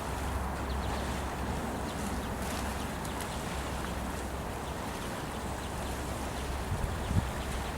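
Wind buffeting the camcorder's microphone: a steady low rumble over an even outdoor hiss, with two short knocks about seven seconds in.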